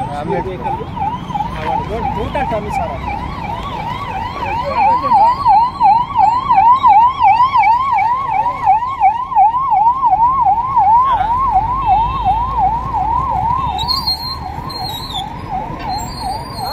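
Electronic emergency-vehicle siren in a fast yelp, each rising sweep repeating about three times a second. It grows louder about five seconds in and eases off after about eleven seconds, over steady road traffic.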